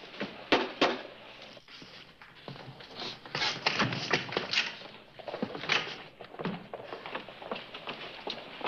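A series of irregular knocks and thumps, bunched together about halfway through.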